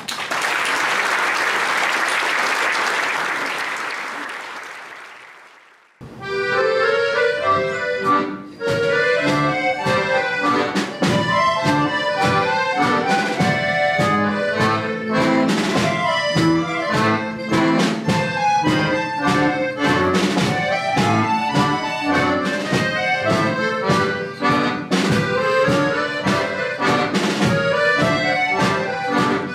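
Audience applause dying away over the first five seconds. About six seconds in, an accordion orchestra starts playing an orchestral arrangement, many accordions together over a rhythmic pulse of sharp accents.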